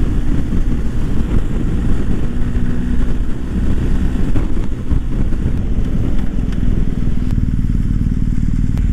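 BMW R1250 GS boxer-twin engine running under way, heard from the rider's own bike with road and wind noise, easing off near the end as the bike slows into a lay-by.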